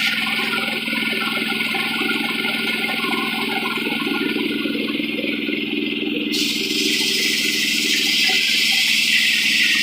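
An engine running steadily, with a strong hissing rush of noise over its hum.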